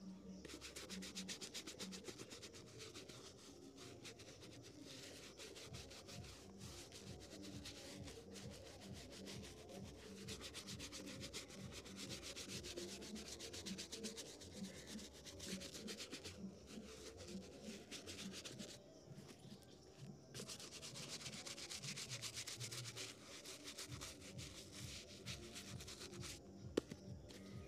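A small metal blade is scraped rapidly back and forth over a shoe's sole, in runs of quick strokes with brief pauses between them.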